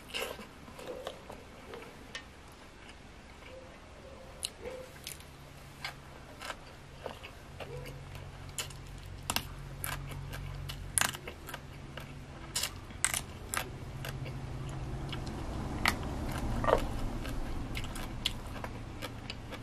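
Close-up eating sounds: chewing a grilled egg-filled frog, with many sharp, irregular crisp crunches. A low hum runs under the chewing for much of it.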